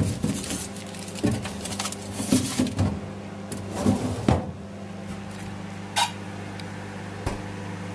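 Microwave oven humming steadily throughout. Over it, a foil-wrapped chocolate bar rustles and a plastic freezer drawer is slid and pushed shut, with knocks and scrapes through the first four seconds or so, then a single click about six seconds in.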